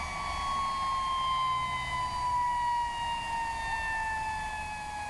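Helicopter turbine engine winding down after shutdown: a high whine falling slowly and steadily in pitch, over a low rumble.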